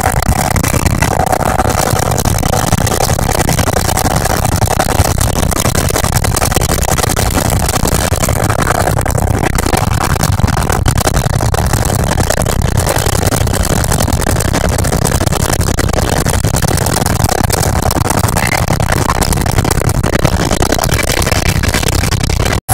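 Loud, steady helicopter engine and rotor noise heard from inside the cabin, running without letup. It cuts out for a split second near the end.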